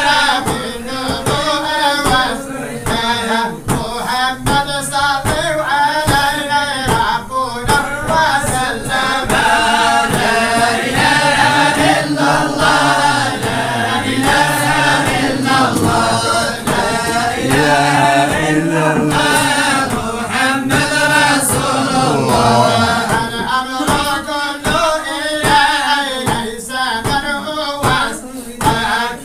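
A vocal group singing a devotional chant together, with sustained, winding sung lines.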